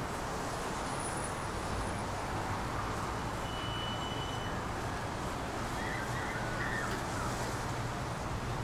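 Steady city ambience: a constant hiss and low hum of distant road traffic, with a few faint short chirps about six seconds in.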